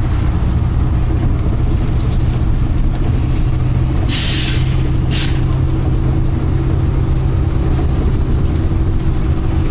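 Volvo B9TL double-decker bus running steadily, heard from on board, with a low engine hum. About four seconds in comes a 'pshhh pshhh' of air hissing out, a longer hiss then a shorter one. This bus makes that sound every few seconds, far more often than a normal B9TL.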